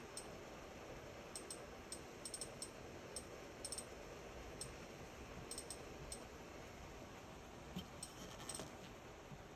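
Samsung induction cooktop making a faint, irregular high-pitched clicking: scattered clusters of quick ticks over a steady low hiss.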